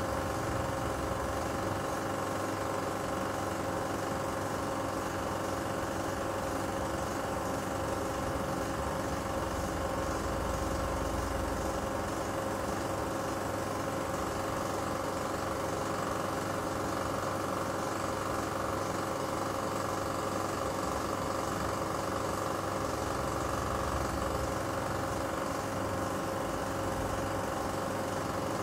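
16 mm film projector running, a steady mechanical hum from its motor and film mechanism.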